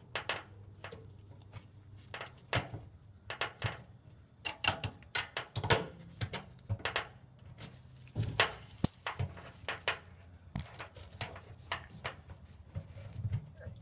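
Irregular small clicks and taps as a retaining clip is worked into position on the vent hose fitting at the top of a pickup's fuel pump module.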